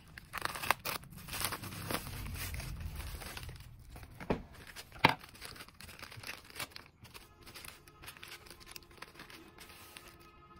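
Plastic packaging tearing and crinkling: a bubble mailer is opened and small resealable plastic bags of beads are handled, with a sharp click about five seconds in.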